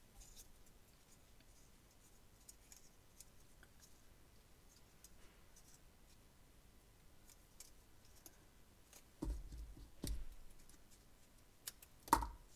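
Faint handling of paper and cardstock, with light rustles and small clicks, as a paper strip is wrapped around a paper bow. A couple of soft knocks come about nine and ten seconds in, and a sharper click near the end.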